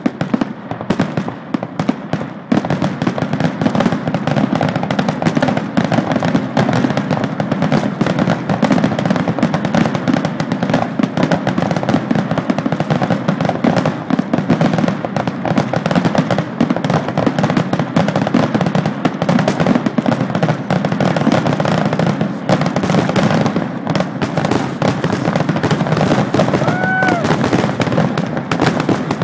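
Fireworks finale: a dense, continuous barrage of bangs and crackling from many shells bursting in quick succession, with no pause.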